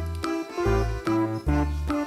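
Background music: a light, bouncy tune of short notes over a bass line that changes about every half second.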